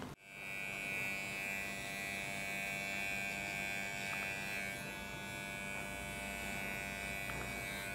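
Cordless electric hair clipper buzzing steadily while cutting hair, with a high whine that eases a little about halfway through.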